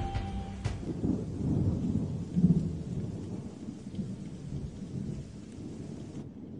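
Rolling thunder over a steady hiss of rain, the rumble swelling in the first few seconds and then fading away. The rain hiss cuts off suddenly near the end.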